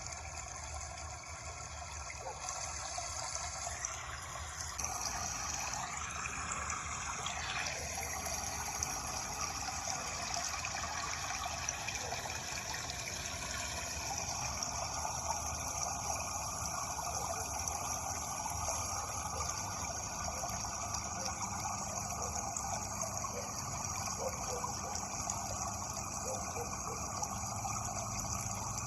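Running water, a steady rushing flow that grows a little louder and changes in texture about five seconds in.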